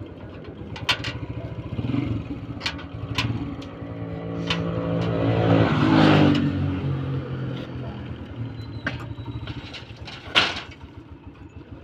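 A motor vehicle's engine passing, swelling to its loudest about halfway through and then fading, with scattered sharp knocks and clicks, the loudest near the end.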